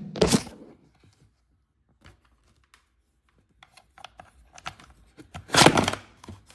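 Handling noise: a few light clicks and taps, then a louder rustling clatter about five and a half seconds in, as objects are picked up and moved.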